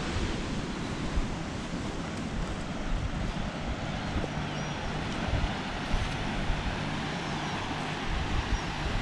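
Wind buffeting the microphone in uneven low gusts over a steady rush of sea surf.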